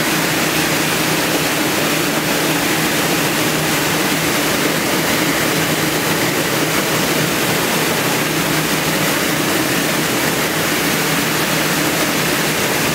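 Stainless steel rotary drum of a ginger washing machine running, a steady motor hum under the rush of water spraying inside the turning drum.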